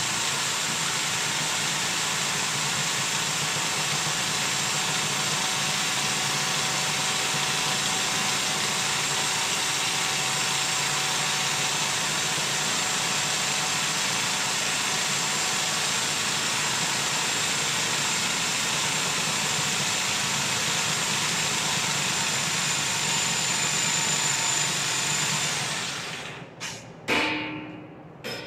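Machinery running steadily, then shutting off about 26 seconds in, followed by two or three sharp knocks.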